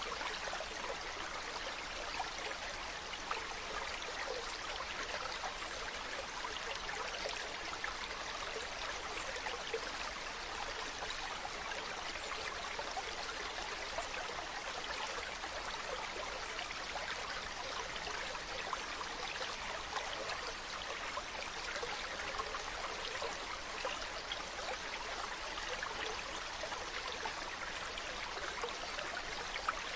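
Running water flowing steadily, an even trickling and splashing rush.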